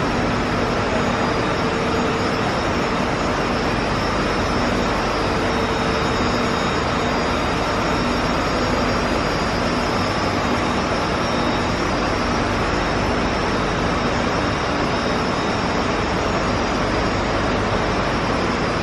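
Steady, loud rushing roar of ventilation and cooling machinery in a particle-detector hall, with a few faint steady hums and whines over the noise.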